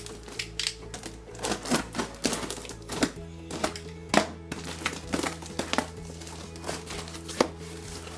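A taped, plastic-wrapped cardboard box being handled and opened: irregular clicks, scrapes and crinkles of tape, film and cardboard flaps, with a couple of sharper snaps. Background music plays throughout.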